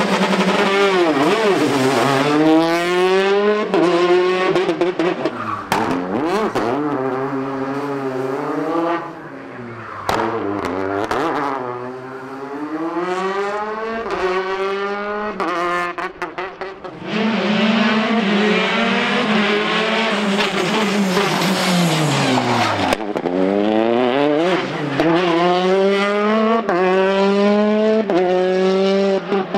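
Citroën DS3 rally car's engine revving hard and accelerating through the gears, its pitch climbing and dropping again and again as it shifts and slows for corners.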